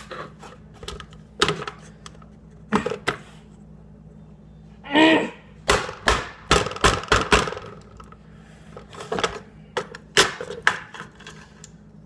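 Irregular hard plastic knocks and clicks from a RAM stick being forced down into a motherboard's memory slot, where it will not seat, with a quick run of knocks in the middle. A brief vocal strain about five seconds in.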